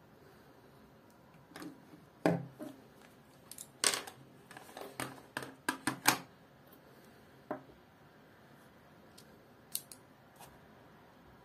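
Small clicks and knocks of a half-disassembled Haibo Origin 1 baitcasting reel being handled and set down: a quick run of clicks from about a second and a half in to about six seconds, then a few single clicks.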